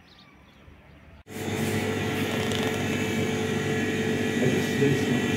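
Faint outdoor quiet with a few faint chirps, then about a second in an abrupt change to a loud, steady mechanical hum with several held tones from a shop's refrigerated freezer display cabinets.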